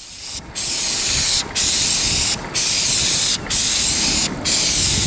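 Spray gun hissing as it sprays coloured coating onto concrete roof tiles, in about five passes of roughly a second each with brief breaks between them.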